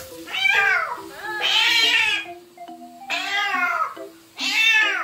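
A cat yowling loudly in protest at being bathed: four long cries, each rising and then falling in pitch. Soft background music runs underneath.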